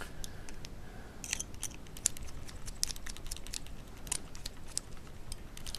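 Small screws being run in and lightly nipped up with a small driver on a brushless gimbal's metal arm and motor: irregular light clicks and ticks of tool and metal parts handled on a bench.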